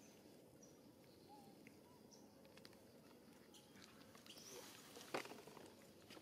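Near silence: faint outdoor background with a few faint, short chirps and one sharp click about five seconds in.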